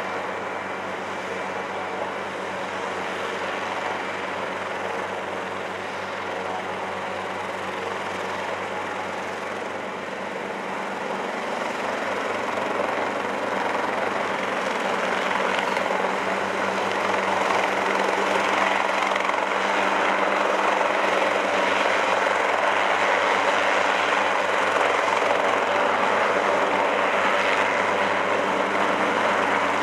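Hughes 300 light helicopter running with its piston engine and rotor turning, a steady sound that grows louder from about halfway through as it lifts off into a hover.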